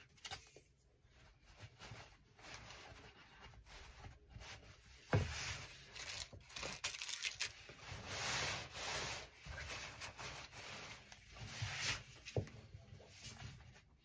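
Printed fabric rustling and rubbing as hands smooth it flat and lay a tape measure across it, in uneven swells, with a single sharp knock about five seconds in.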